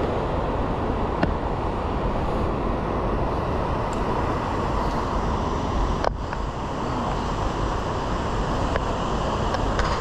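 Steady rushing roar of a whitewater river running through the gorge below, an even noise without breaks.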